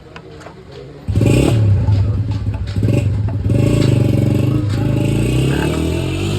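Motorcycle engine running loudly, rising and falling in pitch a few times. It comes in suddenly about a second in and cuts off abruptly at the end.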